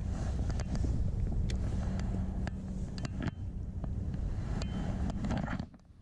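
Wind rumbling on an action camera's microphone, with scattered sharp clicks and taps from handling a spinning rod and reel and a faint steady hum underneath; it cuts off suddenly near the end.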